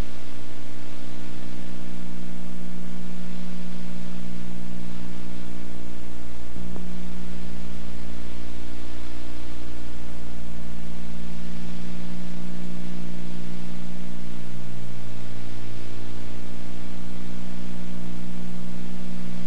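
Loud, steady electrical hum with many evenly spaced pitches under a constant hiss, the kind of noise carried on an old videotape's sound track. The low end of the hum shifts slightly about six and a half seconds in.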